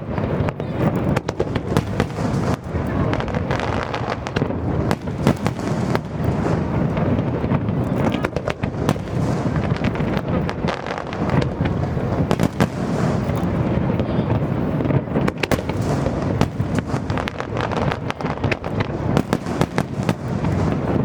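Fireworks display: a dense, continuous barrage of shell bursts and crackling, with bangs coming many times a second without letup.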